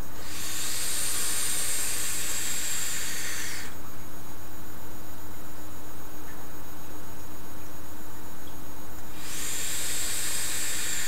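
Two long hisses from an e-cigarette being drawn on as its coil fires, one of about three and a half seconds at the start and another beginning near the end, over a steady low hum.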